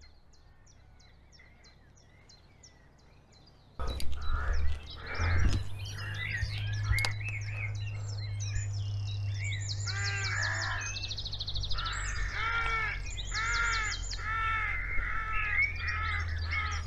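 Faint high ticking at first. About four seconds in, birds start calling and singing: repeated arching calls and fast high trills over a steady low rumble.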